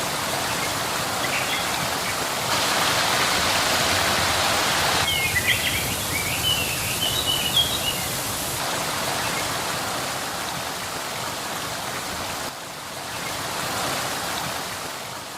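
Steady rushing and splashing of water falling over a waterfall, its level shifting abruptly several times. A few short bird chirps come in between about five and eight seconds in.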